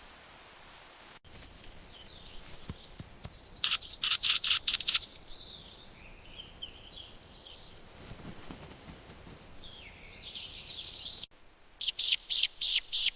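Bird song: quick runs of sharp, evenly repeated high notes, with warbling phrases between them.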